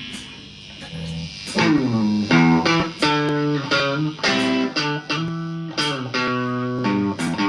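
Electric guitar and bass kick in about a second in, with a downward slide, then a run of short, chopped chords.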